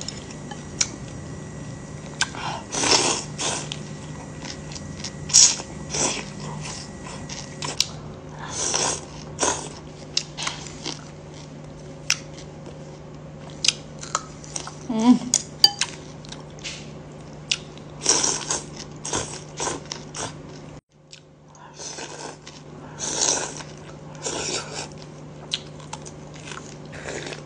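Close-up mouth sounds of a person eating noodle soup: slurps, chewing and lip smacks in short, irregular bursts. A steady low hum runs beneath them and cuts out briefly about three-quarters of the way through.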